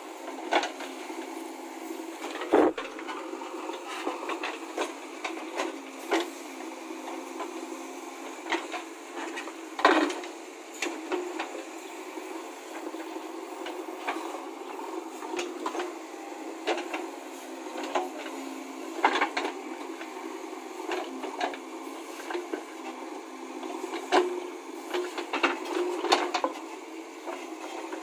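JCB 3DX backhoe loader digging: a steady engine and hydraulic drone under the steel bucket scraping and knocking through dry, stony soil. Sharp knocks and scrapes come irregularly, a few seconds apart, the loudest about ten seconds in and again near the end.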